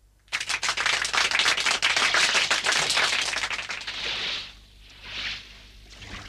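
Applause from a crowd: dense rapid clapping that fades away after about four seconds, with a brief softer swell about a second later.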